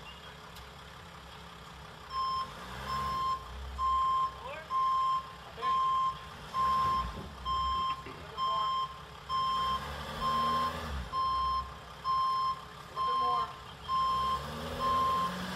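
Delivery van's reversing alarm beeping about once a second, starting about two seconds in. Under it the van's engine revs up and falls back in several pushes as it tries to back out while stuck with one wheel buried in the soft yard.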